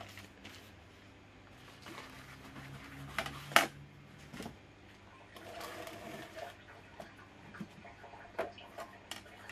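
Hard plastic parts and packaging being moved and set down on a counter: scattered knocks and clacks, the loudest about three and a half seconds in, with some rustling midway. A faint low hum runs under the first few seconds.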